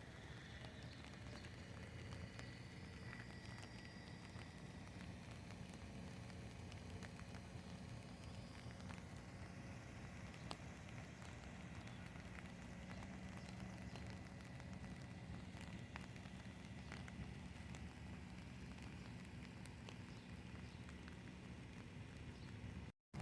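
Light rain falling steadily, with scattered individual drops tapping close by.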